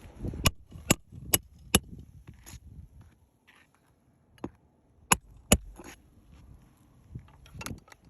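Hammer blows on a metal roof snake worked under asphalt shingles: four quick sharp strikes, a pause, then a few more spaced strikes.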